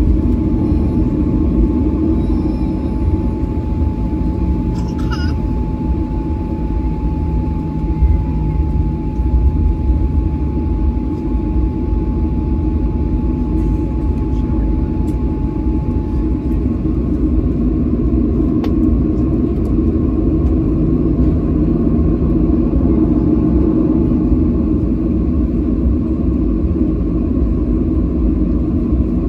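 Cabin noise inside a Boeing 737-900 taxiing after landing: a steady low rumble from the idling engines and the rolling landing gear. A thin steady tone sounds for about ten seconds, starting around five seconds in.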